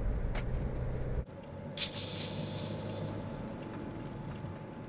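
Low road rumble inside a moving minivan's cabin, which cuts off abruptly about a second in. A quieter steady hum follows, with a few light ticks and a brief hiss.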